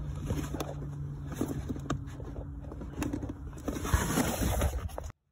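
Hands working behind a loosened plastic door trim panel, unhooking the connections that still hold it, with scattered clicks, rattles and scrapes over a steady low hum. The sound cuts off abruptly near the end.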